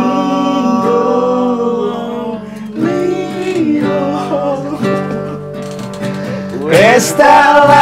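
Acoustic guitar strummed as accompaniment to male voices singing a slow Javanese-language pop song; the singing grows much louder about seven seconds in.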